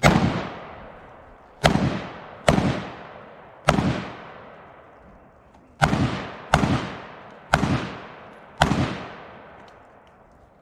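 Eight gunshots from a firearm at a multigun match, fired at an uneven pace, about a second apart at the quickest. Each shot is loud and rings out with a long echo tail.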